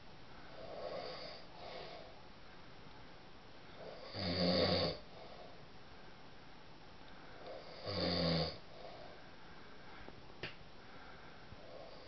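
A man snoring in his sleep: two loud snores about four seconds apart, each under a second long, with quieter breaths between them.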